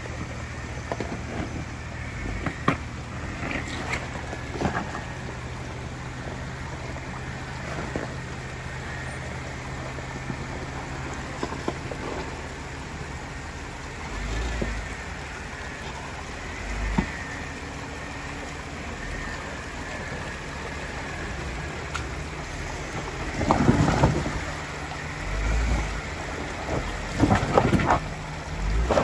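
Jeep Wrangler JKU's V6 engine running at low speed as it crawls over rocks through a shallow creek, with running water and scattered knocks of tyres on stone. The engine pulls harder in a few louder surges near the end.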